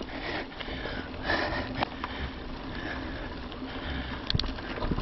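Mountain bike riding on a dirt trail: a steady rumble of tyres and wind on the mic, a few sharp clicks from the bike, and a rider breathing hard.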